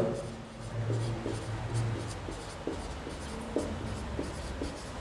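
Marker pen writing on a whiteboard: a run of short strokes as words are written.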